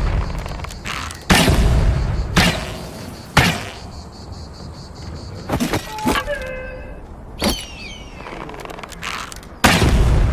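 Bow and arrow sound effects: a series of about six sharp, heavy impacts with short decaying tails, spaced roughly a second or two apart, with a brief run of falling whistle-like tones just past the middle.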